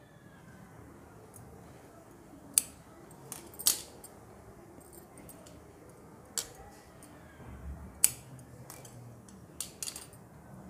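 Large tailor's shears snipping a small hole in a round cloth piece and being set down on the hard floor, giving a handful of sharp metallic clicks over faint rustling of cloth and beaded lace.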